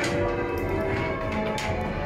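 Half-muffled church tower bells in change ringing, one bell striking after another over the overlapping hum of the earlier strokes. One loud stroke comes at the start and another near the end.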